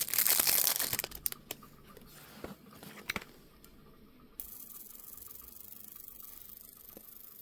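Electric plasma arc lighter firing with a loud, high screech that cuts off about a second in, followed by a few sharp clicks.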